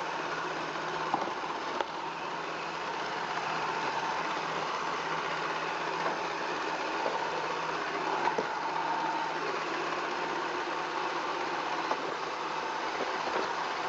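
Roomba 400-series robot vacuum running: a steady motor and brush whir, with a few faint clicks.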